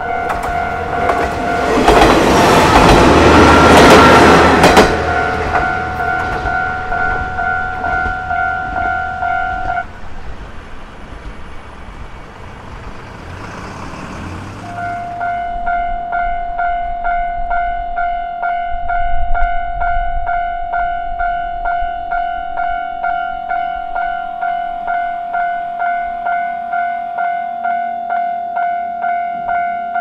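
Japanese level-crossing warning bell ringing in an even electronic ding-ding pulse while a Kanto Railway Ryugasaki Line train passes loudly in the first few seconds. The bell stops about ten seconds in, then starts again about five seconds later as the barriers lower once more.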